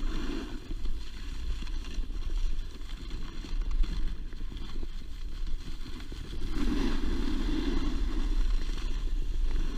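Snowboard sliding and scraping over groomed snow on a downhill run, with a low rumble of wind on the microphone. The scraping grows louder from about six and a half seconds in.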